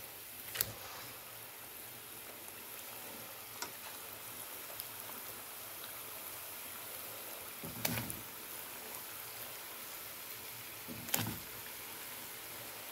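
Puff puff dough balls deep-frying in hot oil in a stainless steel pot: a steady sizzle of bubbling oil. A few short knocks cut through it, about half a second, eight seconds and eleven seconds in.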